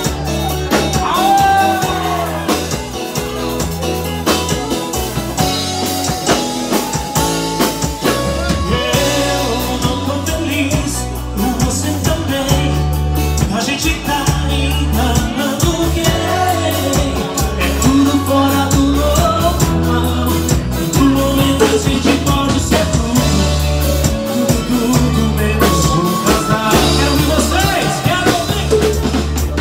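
Live music: an acoustic-electric guitar played over a steady bass line and drum beat, with a gliding melodic line above.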